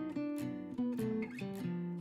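Background music: acoustic guitar, strummed chords struck at a steady pace.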